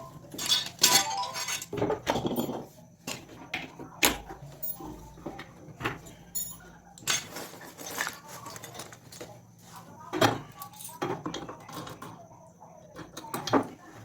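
Irregular metallic clinks and knocks, a dozen or so at uneven intervals, like tools and metal parts being handled. A faint steady hum lies underneath.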